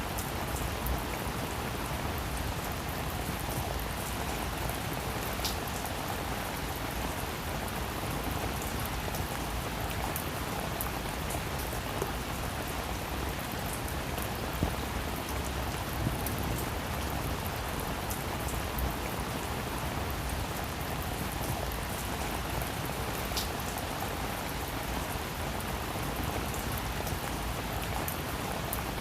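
Heavy rain falling steadily, a dense even patter with many single drops ticking through it.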